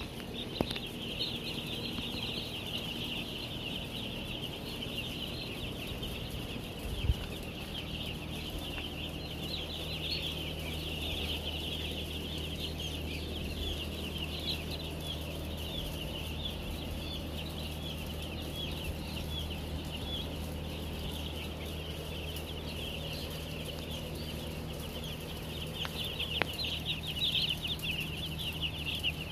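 A large flock of young chicks peeping all at once, a dense, continuous chorus of high chirps that grows busier near the end. A steady low hum joins about seven seconds in, with a single thump just before it.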